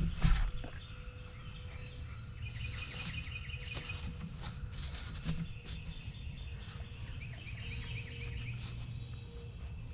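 Songbirds singing in woodland: fast trills of high notes come twice, over a steady low background rumble. A sharp thump sounds just after the start.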